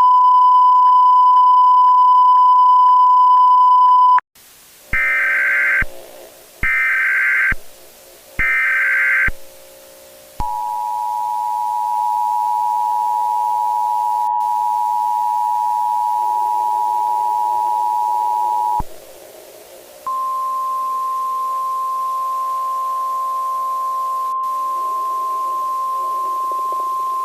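Emergency Alert System tones. A loud steady beep lasts about four seconds, then come three short bursts of screeching data signal, then a steady attention tone for about eight seconds. After a brief gap a slightly higher steady alert tone follows, all over a faint low drone.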